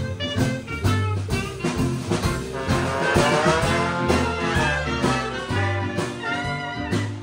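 A small live swing band playing a jazz number, with trumpet, trombone and saxophone over guitar, double bass and drums.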